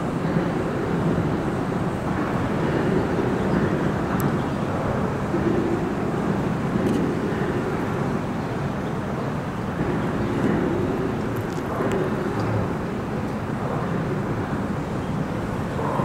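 Steady highway traffic noise from cars crossing the through-arch bridge overhead, a continuous rush of tyres and engines that swells and eases gently.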